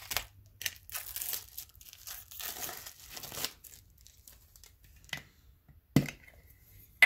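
Crinkly plastic wrapping being torn and crumpled off a Funko Soda can for about three and a half seconds. Then two sharp knocks, about five and six seconds in, the second trailed by a brief ring.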